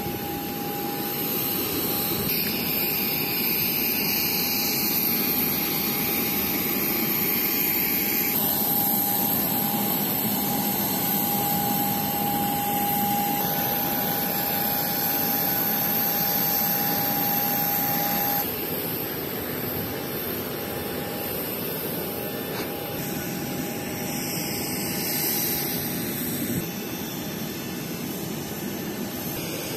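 Steady whine and rushing noise of a jet turbine running, with a thin high whistle above it. The sound shifts abruptly a few times, around 8 and 18 seconds in.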